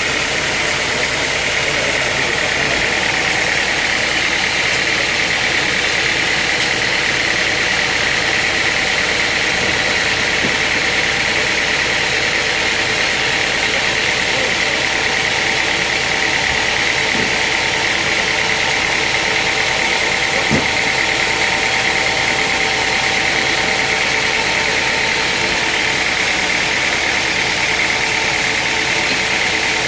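Sawmill machinery running steadily: a loud, unchanging mechanical drone with a steady high hum.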